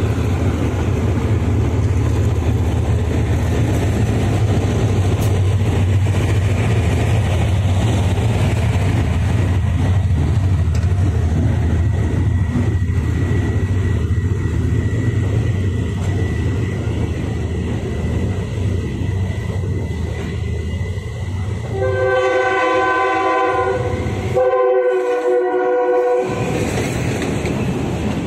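Passenger express train pulled by a diesel-electric locomotive rolling past, with a steady low engine drone and the rumble of coaches on the rails. Near the end the locomotive's horn sounds twice, each blast lasting about a second and a half.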